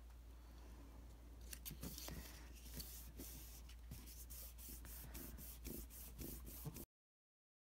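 Faint rubbing and rustling of hands pressing and smoothing cardstock box panels flat on a table, with many small clicks and scratches of paper. It stops abruptly near the end.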